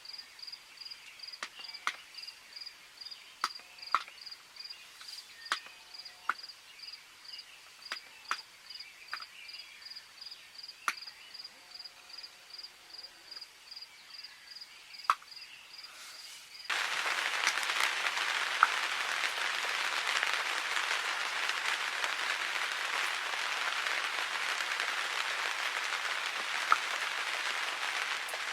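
A high-pitched insect chirp repeating about three times a second, with scattered sharp drips ticking. About seventeen seconds in, a steady hiss of rain takes over abruptly and runs on with the odd louder drip.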